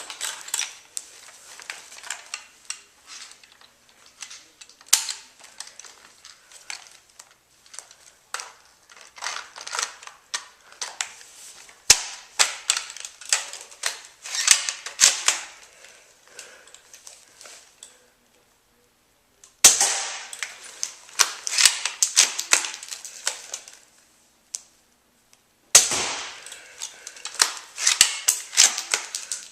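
Dense runs of sharp mechanical clicks and clacks from a UHC Tactical 9 spring airsoft sniper rifle being worked, with a few louder single cracks. The clicking breaks off twice into near silence and starts again abruptly.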